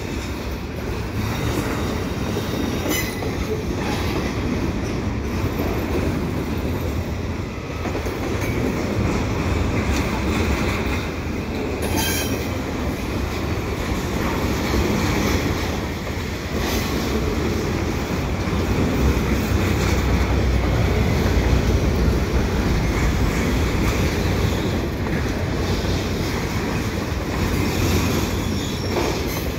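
Double-stack container well cars rolling slowly past on steel wheels, a steady rumble of wheels on rail with a couple of sharp clanks.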